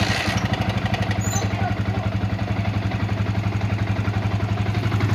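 Yamaha Vixion motorcycle's single-cylinder four-stroke engine idling steadily, just started, with a fast even pulse. This is the engine noise that the owner calls noisy (berisik) and wants to cure.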